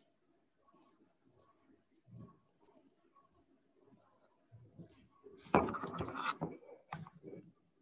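Computer keyboard being typed on: a run of light, sharp key clicks, a few a second, as a word is entered letter by letter. About five and a half seconds in comes a louder, noisier sound lasting about a second.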